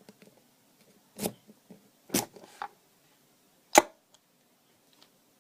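A rake pick working in a cheap padlock: faint scraping ticks and a few sharp metallic clicks, three of them distinct, the loudest about four seconds in.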